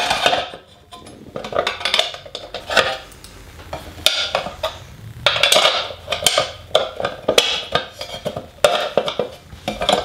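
Bent 1/8-inch aluminum sheet plates handled and set against each other: irregular clinks, taps and scrapes of metal on metal.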